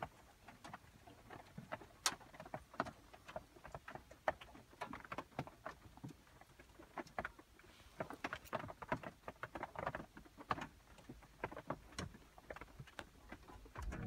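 Faint, irregular tapping of water drops, a few each second, falling on the camper van's metal body.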